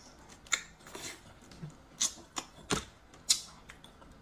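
Mouth sucking and smacking at a red shrimp's head, then the shrimp's shell being peeled by hand: a string of six or so sharp, wet clicks and smacks about half a second apart.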